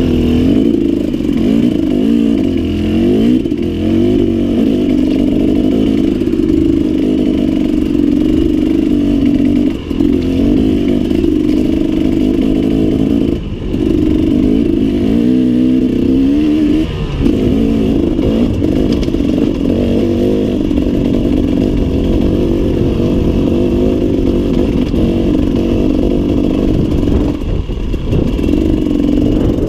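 Loud two-stroke enduro motorcycle engine, a 2017 KTM 300 EXC, ridden up a rocky dirt trail. It revs up and down with the throttle, with brief drops about ten and thirteen seconds in.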